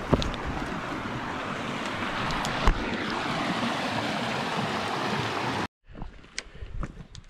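Steady rushing of a creek, with a few footsteps and knocks of gear. About three-quarters of the way through it cuts off suddenly, leaving quieter scattered footsteps.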